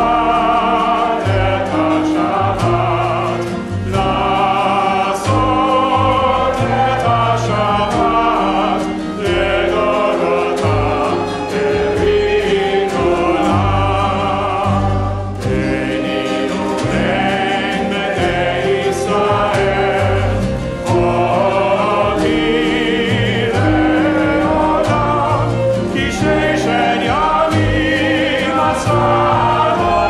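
A small group of voices singing a Hebrew prayer melody together, led by a cantor, over acoustic guitar, upright bass and hand drum.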